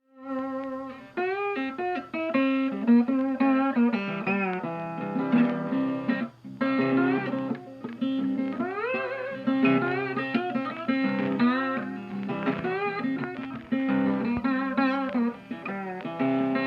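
Intro music: a guitar tune, with some notes sliding up in pitch.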